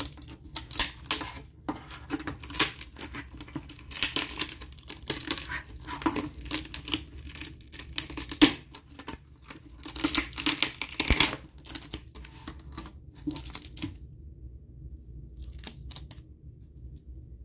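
Adhesive tearing as a plastic backing sheet is peeled off the aluminium key plate of a 2009 Apple keyboard: a run of uneven rips, the loudest about halfway, dying away near the end to a few faint clicks.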